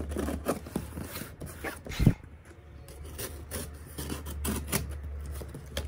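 A cardboard shipping box being handled and cut open: cardboard rubbing and scraping, a thump about two seconds in, and a box cutter drawn along the packing tape.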